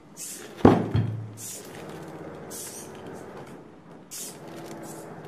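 A heavy thud, with a second knock just after, as a cast-iron dumbbell gripped by a robot hand knocks against a workbench. Short hissing bursts follow every second or so.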